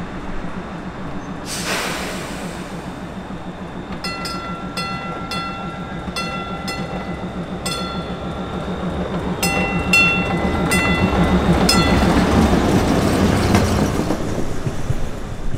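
Pullman-Standard "Wartime" PCC trolley pulling out and passing close by: a steady low hum, a short hiss about two seconds in, and a bell struck in irregular strokes for several seconds. The rumble of its wheels on the rails swells as it goes past, then cuts off suddenly at the end.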